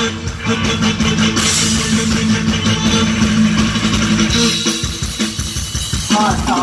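Live band playing Isan toei music through a PA: electric guitar, bass and drum kit, with a singer's voice coming in near the end.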